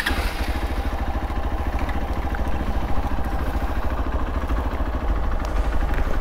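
Motorcycle engine running at low revs with a fast, even pulse, coming in suddenly at the start and holding steady as the bike moves off.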